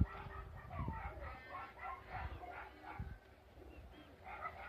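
Farmyard birds calling: many short chirps and clucks, like hens clucking, with a sharp click right at the start.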